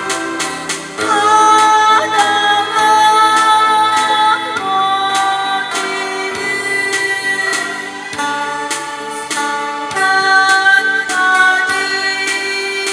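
A woman singing a slow Korean folk-pop ballad over instrumental accompaniment with evenly spaced strokes, holding long notes.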